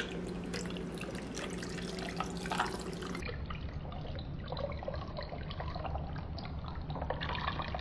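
Tea and lemonade running in a thin steady stream from a plastic drink dispenser's spigot into a glass mason jar packed with ice, trickling and splashing as the jar fills.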